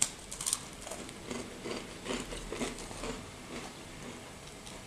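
A person biting into and chewing a dry MRE cracker: an irregular run of small crunches, with a sharp crack of the first bite at the start.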